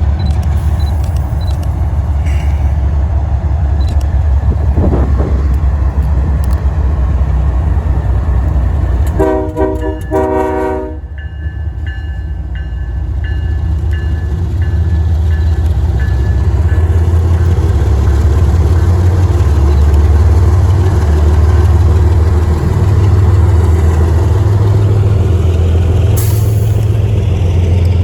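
Diesel freight locomotive horn giving one short blast about nine seconds in, lasting about a second and a half, over a steady low rumble of idling engines.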